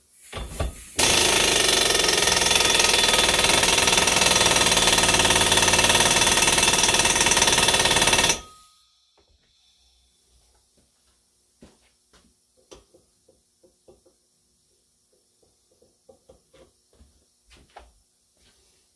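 Air impact wrench running in one steady burst of about seven seconds, driving the drawbolt of an exhaust pipe expander to spread its dies inside a steel exhaust pipe. It stops abruptly, and faint metallic clicks and knocks of the tool being handled follow.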